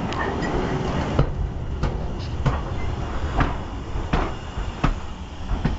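Ivatt Class 4MT 2-6-0 steam locomotive No. 43106 rolling slowly past at close range: a low rumble with a sharp knock about every two-thirds of a second.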